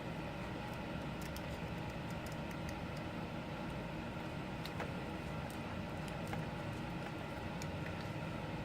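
Faint light clicks of small tools and phone parts being handled, over a steady hum.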